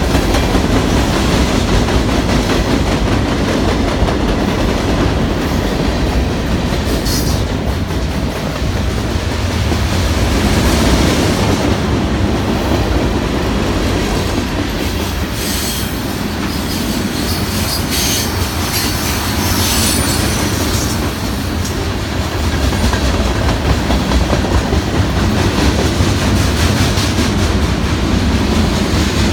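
CN freight train rolling past: a steady rumble of steel wheels on rail with clickety-clack over the rail joints. Brief high-pitched wheel squeals come a few times, about seven seconds in and again in the middle.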